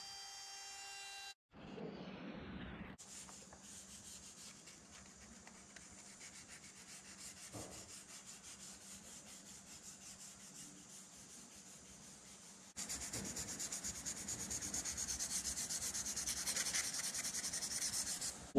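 Hand sanding of a camphor-wood piece, rubbed back and forth in fast, even strokes on sandpaper; the strokes get louder about two-thirds of the way through. At the very start, a trimmer router's steady whine is briefly heard before it cuts off.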